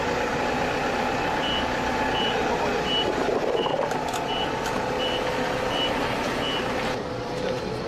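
Vehicle backup alarm beeping eight times, about one beep every 0.7 s, over steady heavy machine noise. Near the end the beeping has stopped and the background changes abruptly.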